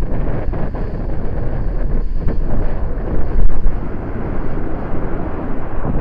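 Motorboat running at speed: heavy wind buffeting on the microphone over the rush of spray off the hull, with a stronger gust about halfway through.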